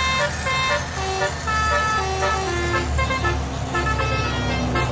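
Battery-powered toy diesel train running on its track, playing a simple electronic tune of short notes at changing pitches over a steady low motor hum.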